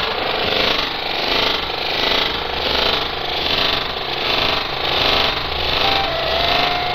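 Harsh noise music: a dense wall of distorted electronic noise that swells and ebbs in a pulse roughly every three-quarters of a second. A thin steady tone joins it near the end.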